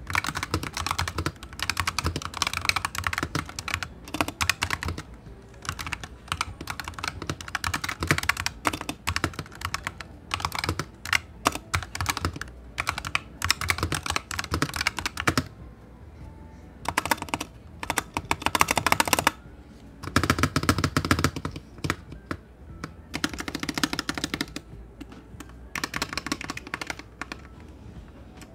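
Typing on a mechanical keyboard fitted with new aftermarket keycaps: fast runs of clacking keystrokes broken by short pauses.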